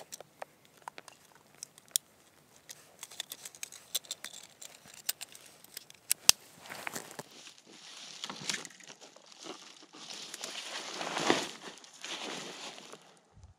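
Rustling and crunching of dry grass and brush, with scattered sharp clicks and snaps in the first half. A longer spell of rustling follows and is loudest near the end. It is the sound of a person moving through dry undergrowth and handling gear.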